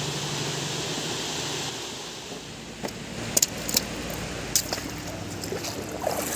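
Shallow rocky river running with a steady rush, with a few sharp footsteps and scrapes on stone between about three and four and a half seconds in, then water sloshing as someone wades in near the end.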